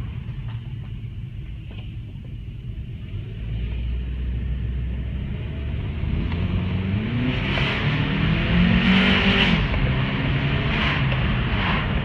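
An 8th-generation Honda Civic's four-cylinder engine heard from inside the cabin, running at a low rumble and then accelerating, its note rising from about three seconds in. From about six seconds a rushing hiss of air and wind builds over it, with several louder surges.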